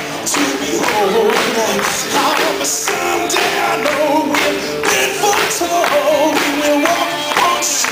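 Upbeat gospel song playing: voices singing a melody over a steady beat with tambourine-like percussion.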